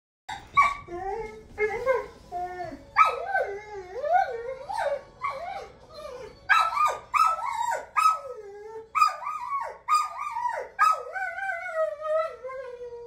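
German Shorthaired Pointer whining and yipping over and over: a long run of high cries that rise and fall in pitch, each starting sharply, beginning a moment in.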